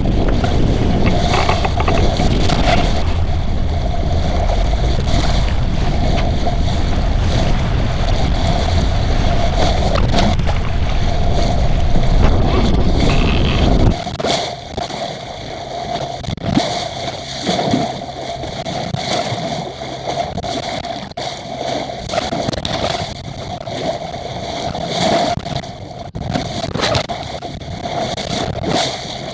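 Water rushing and sloshing along the hull of a small sailing yacht under way in strong wind, with heavy wind rumble on the microphone. About halfway through, the low rumble cuts off suddenly, leaving quieter, uneven water rushing and splashing over a faint steady hum.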